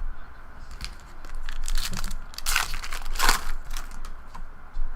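Trading cards and their packaging being handled, making a crinkling rustle, loudest in two bursts around the middle.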